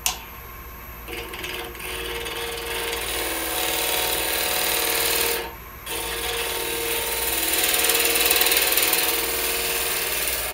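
Spindle gouge cutting into a dry, hard chokecherry blank spinning on a wood lathe: a steady scraping hiss over the lathe's hum. The cut breaks off for about half a second just past the middle, then carries on.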